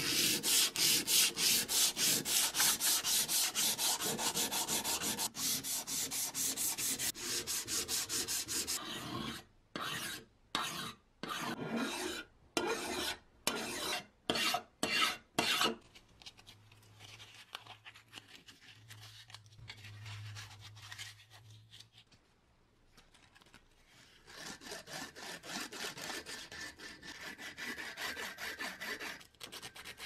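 Hand-sanding bare metal with a sanding sponge, first as fast, even back-and-forth strokes, then as slower separate strokes. After a quieter stretch the rhythmic sanding starts again near the end, this time on a small metal key.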